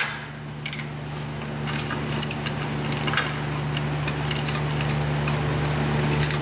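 Light metallic clinks and clicks of hands and tools working an A/C hose fitting loose at the compressor, over a steady low hum.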